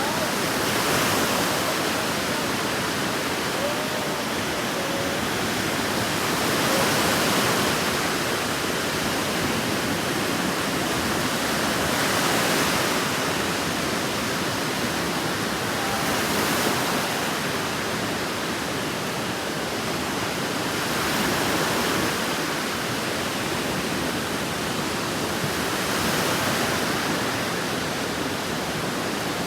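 Waves washing onto a beach, a steady surf noise that swells and eases every four to five seconds, with a few faint gull calls.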